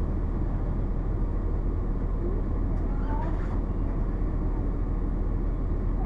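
Cummins ISC inline-six diesel engine of a 2002 Blue Bird CS 40-foot transit bus idling, heard from inside the passenger cabin as a steady, even low drone.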